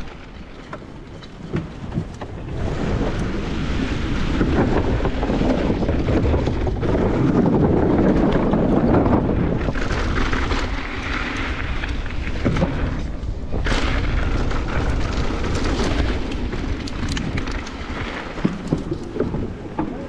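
Mountain bike ridden fast down a dirt trail: wind buffeting the camera's microphone over tyre noise on dirt, building as speed picks up in the first few seconds. One sharp knock about two-thirds through and a run of knocks near the end, as the bike rattles over bumps.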